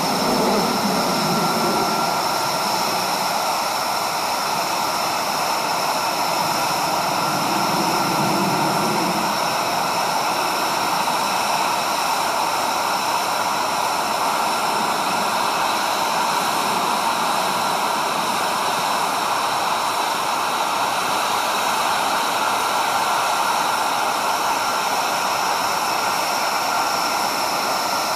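Lockheed Martin F-22 Raptor's twin Pratt & Whitney F119 turbofans in flight: steady rushing jet noise with several high, whining tones held over it.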